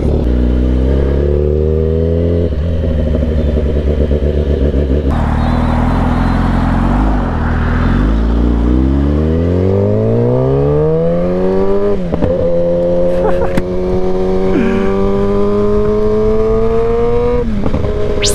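Kawasaki sportbike's engine pulling away from a stop and accelerating hard up through the gears, the revs climbing and dropping back at each upshift, with wind rushing past as speed builds.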